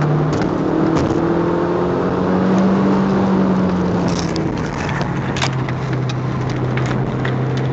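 Audi TT 1.8 quattro's turbocharged four-cylinder engine heard from inside the cabin under load, rising in pitch over the first few seconds, then dropping about four and a half seconds in and running steadier. Road and tyre noise run underneath, with a few short knocks.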